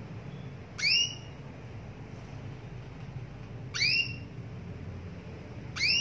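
Female canary calling to a male: three short upslurred call notes, each rising quickly and then levelling off, two to three seconds apart, with the last one near the end.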